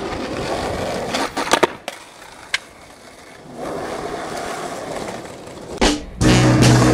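Skateboard wheels rolling on asphalt, with a quick cluster of board clacks about a second and a half in, a single click a second later, and one louder clack near the end. Rock music with guitar and drums starts in the last second.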